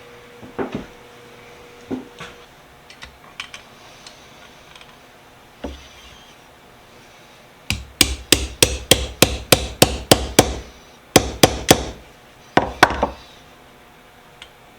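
Hammer tapping on a wood-handled screwdriver during reassembly. A few light clicks of handling come first, then a quick run of about a dozen sharp taps at roughly four a second, then two short groups of taps.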